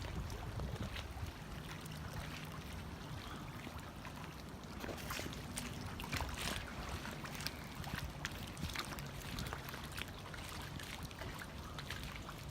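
Small waves lapping and splashing at the edge of a flooded lake, with wind noise and a faint steady low hum.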